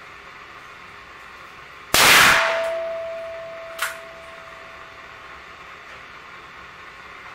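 A single gunshot from a .45 ACP Ruger Blackhawk single-action revolver about two seconds in, fading out slowly with a steady ringing tone. A short, sharp click follows nearly two seconds later.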